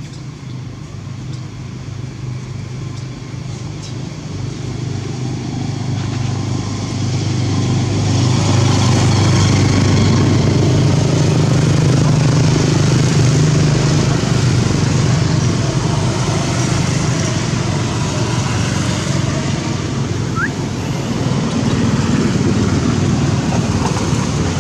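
An engine running with a steady low hum, growing louder over the first eight seconds or so and then holding loud.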